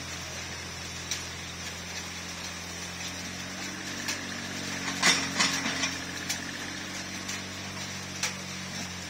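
Mini excavator's diesel engine running steadily, working harder under hydraulic load from about three seconds in as the bucket scoops and lifts soil, with scattered metallic clanks from the bucket and arm, the loudest around five seconds in.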